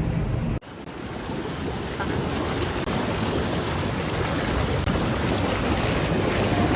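Steady rushing wind noise buffeting the microphone, which starts abruptly just after a sudden cut about half a second in.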